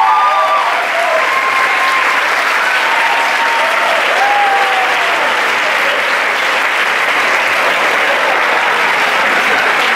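Audience applauding steadily, with a few voices calling out over the clapping in the first few seconds.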